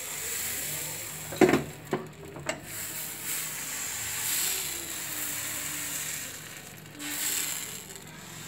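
A metal ladle knocks sharply against the appam pan three times, then the pan scrapes and rattles on the gas-stove grate as it is tilted and swirled to spread the batter, under a steady hiss.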